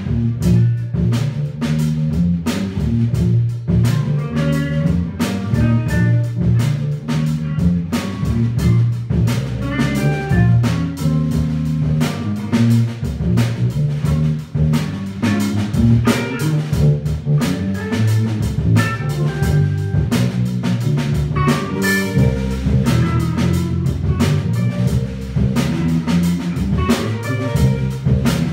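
A small band, electric bass, electric guitar and drum kit, playing a funk tune live, the bass line moving strongly under a steady run of drum strokes, with guitar notes on top.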